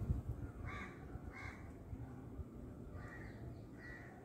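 Crows cawing: four short harsh caws, two close together about a second in and two more near the end, over a faint low background rumble.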